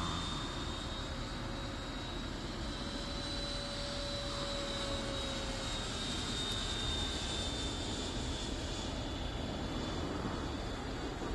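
Electric ducted fan (64 mm) of a Banana Hobby F-16 model jet in flight: a steady high whine over a broad rushing noise, its pitch drifting slightly up and then down as the jet passes.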